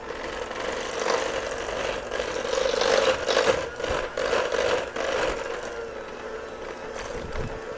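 Five-speed electric hand mixer running steadily, its beaters churning thick pound cake batter and sour cream in a stainless steel bowl, with a frequent clatter and scrape of the beaters against the metal bowl.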